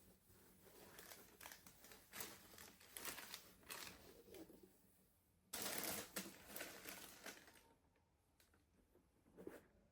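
Packaging being handled during an unboxing: faint, irregular rustling and crinkling, with a louder burst of crinkling about five and a half seconds in.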